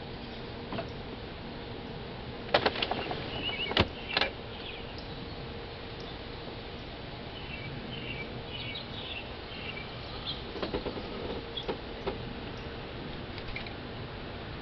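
Short high bird chirps at a seed feeder, coming in small groups, with a cluster of sharp clicks and knocks about two and a half to four seconds in and a few lighter clicks later. A faint steady hum runs underneath.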